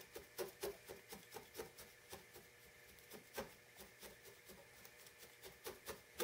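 Felting needle stabbing repeatedly through wool into a burlap-covered felting pad: soft, quick pokes about three to four a second, faint, a few louder than the rest.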